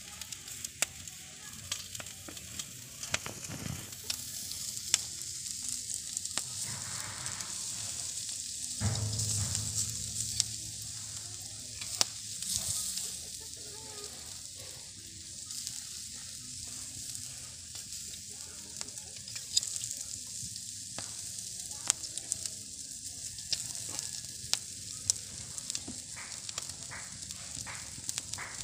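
Chicken pieces sizzling on a wire grill over a charcoal fire, a steady hiss with scattered sharp pops and crackles. A brief low rumble about nine seconds in.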